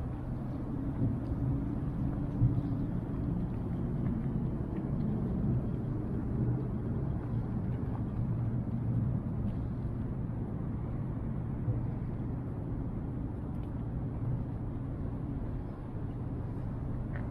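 Outdoor city ambience: a steady low rumble, with a few faint ticks.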